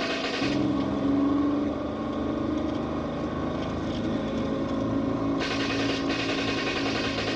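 Car engines running at speed with road noise: a steady drone that shifts in pitch and mix about half a second in and again after five seconds.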